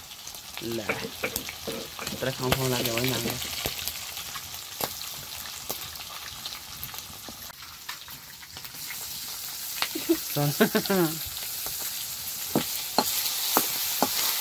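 Food frying and sizzling in a pan, stirred with a spoon that clicks and scrapes against it now and then.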